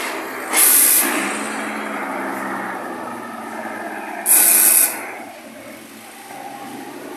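Dump truck's diesel engine running as it pulls away, with two short, loud blasts of air hiss from its air brakes, about a second in and again about four seconds in.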